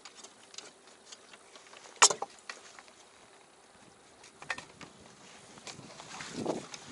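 Scattered light clicks and taps, with one sharp knock about two seconds in, and a swell of wind noise on the microphone near the end.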